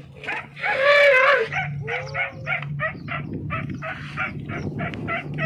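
Asian elephant calling: one loud, high call that bends in pitch about a second in, then a quick run of short repeated calls at about three or four a second.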